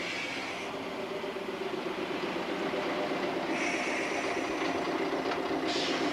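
Czech class 810 diesel railcar at a station platform, its engine running with a steady hum that slowly grows louder. A brief hiss comes about three and a half seconds in.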